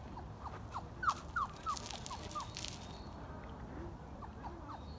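Canine whimpering: a run of soft, short, high squeaks, each falling in pitch, about three a second, then a few fainter ones near the end.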